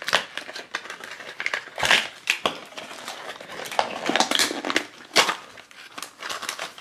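Plastic blind-pack toy packaging crinkling and crackling as hands open it, in irregular sharp crackles and rustles with a couple of louder crunches.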